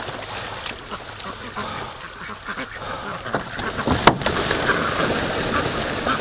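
A flock of domestic ducks, white Pekins and mallard-coloured ducks, quacking and splashing as they crowd through shallow creek water. A sharp knock stands out about four seconds in.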